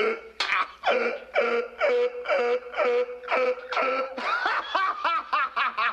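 A man laughing uncontrollably: a long unbroken run of loud "ha" bursts, about two a second, each falling in pitch.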